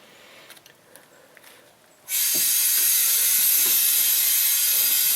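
Compressed air hissing steadily from a portable air tank's hose chuck into a flat lawn tractor tire. The hiss starts suddenly about two seconds in, after a few faint clicks.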